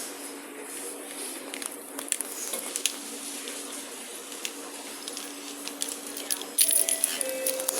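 Train car ambience: a steady low hum with scattered small clicks and faint voices. About six and a half seconds in, a louder hiss starts, with a few short tones over it.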